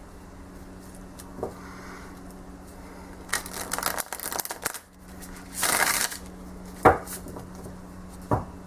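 A thick tarot deck being shuffled by hand: a run of rapid card flicks, then a short rushing cascade of cards, with a few single sharp knocks of the deck on a surface.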